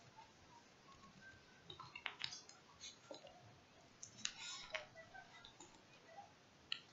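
Near silence broken by a few faint clicks and scrapes of a phone being handled and turned in the hand, in two small clusters about two seconds in and four to five seconds in.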